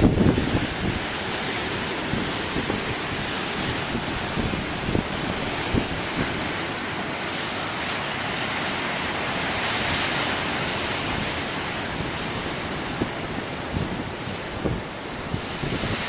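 Big waves breaking and crashing on the shore, a steady wash of surf that swells a little about two-thirds of the way through, with gusty wind buffeting the microphone in short low thumps.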